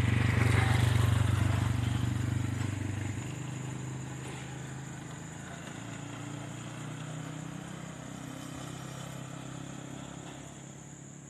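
A motor vehicle engine running, loud for the first three seconds, then dropping to a quieter steady hum as it moves off or slows.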